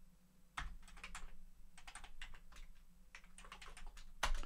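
Amiga 1200 keyboard being typed on: an irregular run of quick key clicks, with a harder keystroke near the end.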